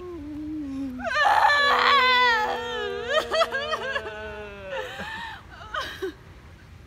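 Acted, melodramatic human crying: a few whimpers, then loud, drawn-out wailing with a wavering pitch from about one second in until nearly five seconds, trailing off into short sobs.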